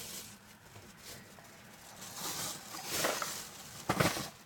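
Rustling and handling noises in a car cabin: a few short, uneven rustles, a longer one about two to three seconds in and a sharper, louder one near the end.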